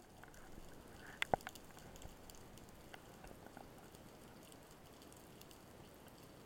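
Faint underwater sea ambience: a steady hiss with scattered crackling clicks, and two sharper clicks a little over a second in.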